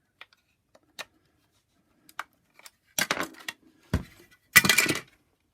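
Hard plastic parts of a Shark DuoClean vacuum floor head being handled and worked apart: a few light clicks, then a rattling clatter about three seconds in, a knock near four seconds, and a louder clatter just before the end.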